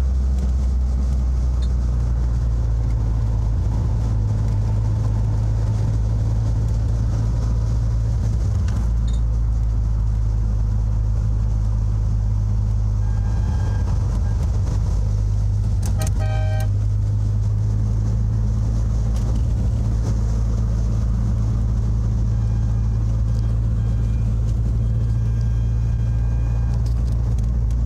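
Steady low engine and road drone of a Citroën CX heard from inside its cabin while driving. About sixteen seconds in there is a short ringing clink.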